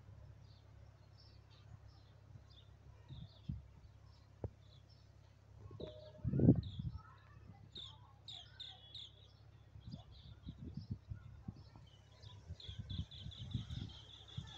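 Small birds chirping in short, high notes throughout, with a fast run of about eight chirps a second near the end. A brief low rumble about six seconds in is the loudest sound.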